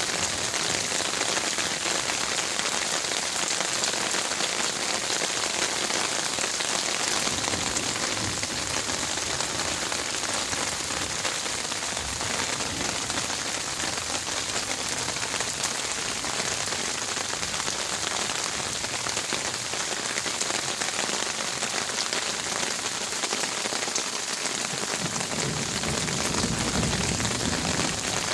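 Heavy rain falling steadily on garden leaves, a dense, even hiss. A low rumble swells in near the end.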